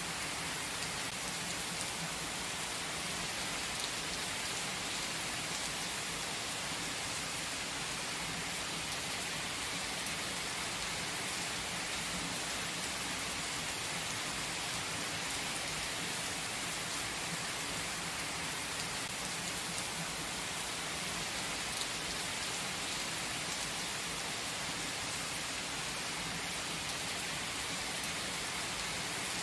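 Steady rain falling: an even hiss with faint, scattered ticks of individual drops.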